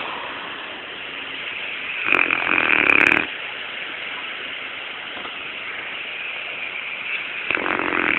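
Loud snoring: one long, noisy snore about two seconds in, lasting about a second, and another beginning near the end, with quieter breathing between them.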